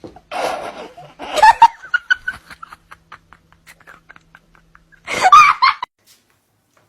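A person laughing in loud bursts, with a run of short, breathy laughs in between.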